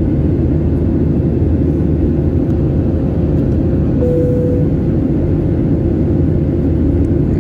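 Steady in-flight cabin noise of a jet airliner, engine and rushing airflow heard from a window seat over the wing. A faint steady hum runs through it, and a brief tone sounds about four seconds in.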